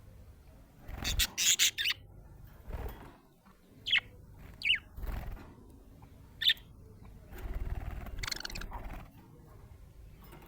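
Budgerigar chirping in short bursts: a quick run of high, sharp chirps about a second in, single chirps every second or so after that, and a longer chattering stretch near the end.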